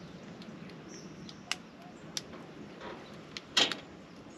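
Fishing gear being handled on a dock: a few sharp clicks and knocks, the loudest a quick double knock about three and a half seconds in.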